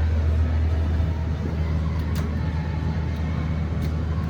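Steady low drone of a 1975 Otis hydraulic elevator, KONE-modernized, running, with a few faint clicks about two seconds in and near the end. The uploader says the unit sounds tired and worn out from heavy use.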